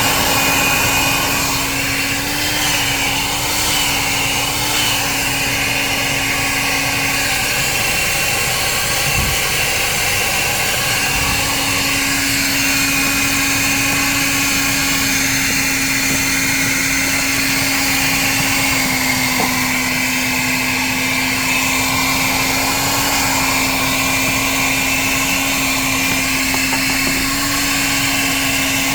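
A 1980s Bon Aire one-gallon wet/dry shop vac running continuously, its motor humming and its air rushing. The hum shifts a little in pitch now and then.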